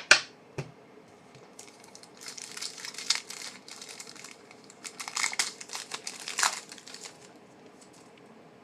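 Foil trading-card pack wrapper crinkling as it is torn open and pulled off, in two spells of crackling, after two sharp taps near the start.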